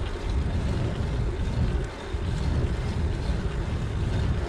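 Wind buffeting the microphone of an action camera on a moving bicycle, a steady deep rumble mixed with the hiss of the tyres on tarmac.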